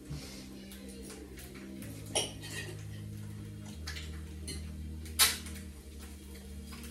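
Metal cooking utensils and pans clinking and clattering, with a sharp clink about two seconds in and a louder one about five seconds in, over a steady low hum.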